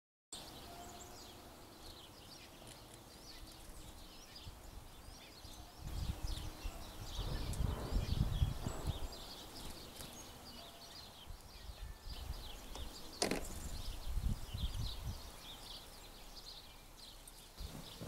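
Small birds chirping repeatedly around backyard feeders, short high calls scattered throughout, over a low rumble that swells twice, the loudest around the middle. A single sharp click about two thirds of the way in.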